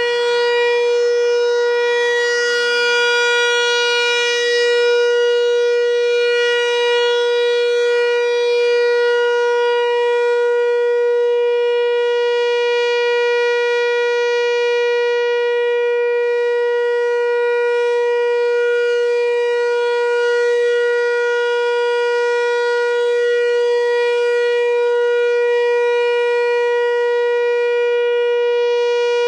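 Analog Whelen WPS-4004 electronic outdoor warning siren sounding its Alert signal on a monthly test: one steady tone held at a single pitch without rising or falling.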